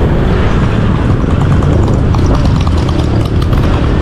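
Motorbike running while being ridden, with a heavy low rumble of engine, road and wind on the microphone, and a patter of small clicks or rattles through the middle.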